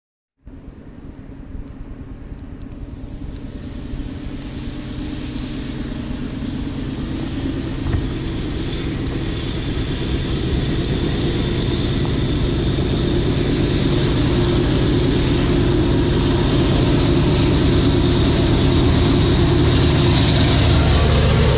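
GE AC44C6M diesel-electric freight locomotive approaching, its low engine rumble growing steadily louder. The sound cuts in abruptly about half a second in.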